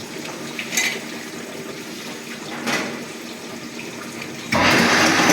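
Automatic drilling and tapping machine running: a steady hiss with two short hissing bursts, then a much louder rushing noise that starts suddenly near the end.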